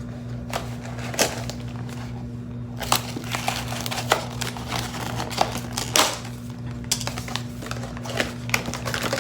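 Blind-box packaging being handled and torn open: irregular crinkles, rustles and sharp clicks of cardboard and plastic wrapping.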